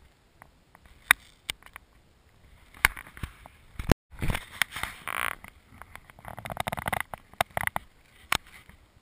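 Hiking footsteps crunching and scraping on a rocky, gravelly mountain path close to the microphone, with irregular sharp clicks of boots or gear on stone. The sound drops out briefly just before four seconds in.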